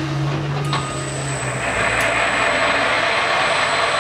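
Grizzly DF-1237G metal lathe being put into gear for its power feed: a couple of short clicks from the levers, then about a second and a half in the spindle starts running with a steady mechanical whir.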